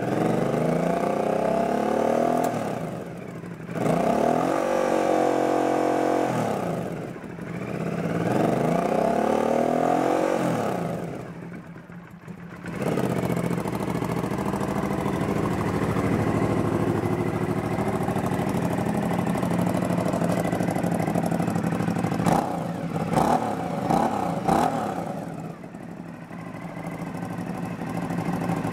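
2009 Aprilia Dorsoduro 750's 90-degree V-twin engine revved three times in a row, each rev rising and falling over about three seconds. It then settles into a steady idle, broken about two-thirds of the way through by three quick throttle blips.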